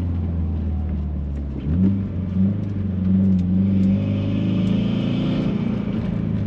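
Turbocharged flat-four engine of a 2018 Subaru WRX running at light throttle. Its drone steps up in pitch about a second and a half in as it pulls, then holds steady. A higher airy hiss from the turbo intake joins for a second or two. The owner finds the induction sound loud and puts it down to the new aluminium turbo inlet.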